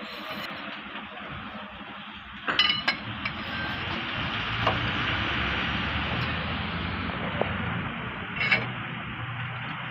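Metal-on-metal clinks of a steel hammer and bar striking a truck's wheel hub and axle spindle: a quick cluster of ringing strikes about two and a half seconds in, a couple of light taps, and another ringing clink near the end, over steady background noise.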